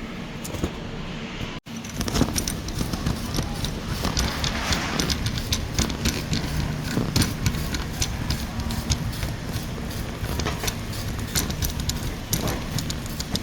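Shopping cart rolling over a hard store floor, its wheels and wire basket clattering in rapid, irregular clicks over a steady low hum. The sound cuts out for an instant about a second and a half in, then carries on.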